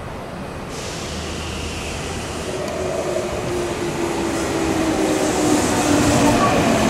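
Tokyu 9000 series electric train pulling in as it slows, its Hitachi GTO-VVVF inverter whining in several slowly falling tones over growing wheel and rail noise. The sound builds steadily as the train comes close and passes.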